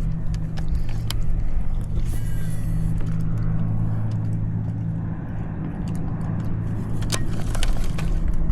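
Steady low motor hum that runs without a break, with a few short clicks or knocks about a second in and twice near the end.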